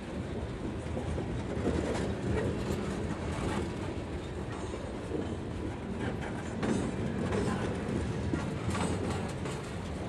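Freight cars of a Norfolk Southern train rolling past: centerbeam flatcars loaded with lumber, then a covered hopper and a boxcar. The sound is a steady rumble with wheels clacking over the rail joints.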